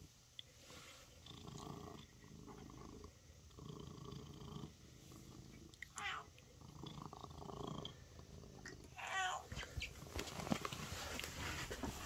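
Domestic cat purring while being stroked, the purr swelling and fading with each breath about once a second. Two short, higher-pitched sounds come through about halfway and again about three-quarters of the way in.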